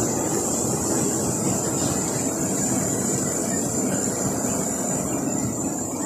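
Shallow stream water rushing steadily over a rock slab, an even rushing noise with a thin steady high tone above it.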